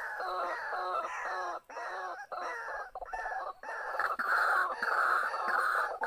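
White-breasted waterhens calling: a rapid, continuous run of croaking notes, about three a second, growing louder and harsher in the last two seconds.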